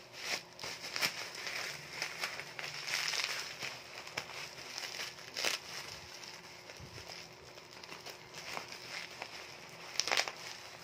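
Bubble wrap crinkling and rustling as it is pulled and unwrapped by hand, with many sharp crackles. The loudest crackles come near the end.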